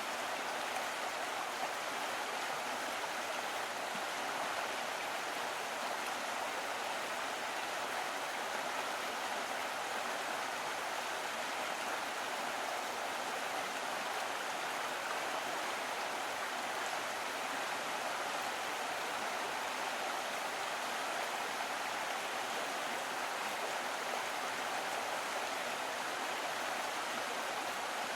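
A small stream running over stones, a steady even rush and babble of water.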